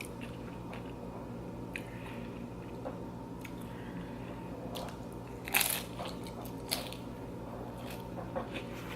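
Close-miked eating of loaded nachos: tortilla chips being bitten and chewed, with scattered short crunches and one loud crunch about five and a half seconds in.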